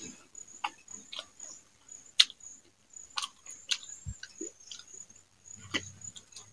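Close mouth sounds of eating rice and fried leafy greens by hand: irregular wet smacks and chewing clicks, with one sharp click about two seconds in, over a steady high pulsing chirr.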